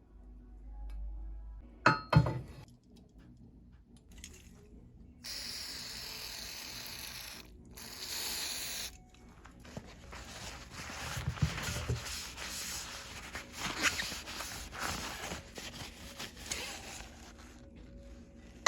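Hand work on bicycle headset parts: a couple of sharp metal clinks, then two hissing sprays, one about two seconds long and one about a second, each cut off sharply. These are followed by a long stretch of rubbing and scraping with small clicks.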